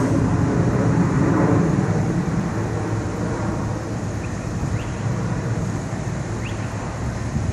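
Outdoor street ambience: a steady low rumble of traffic, heavier for the first couple of seconds and then easing slightly, with a few faint short chirps partway through.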